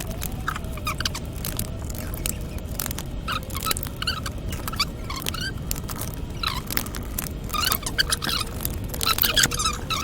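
Toshiba Satellite C640 laptop cooling fan running with a wavering whine and rapid, irregular chirping squeaks and ticks, busier near the end. The fault is a small piece of paper caught in the fan, a noise likened to a mouse squealing.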